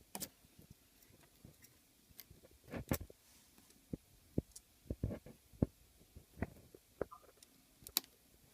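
Irregular small clicks and taps of an iPhone 5 and small repair tools being handled on a work surface, with two sharper clicks about three seconds in and near the end.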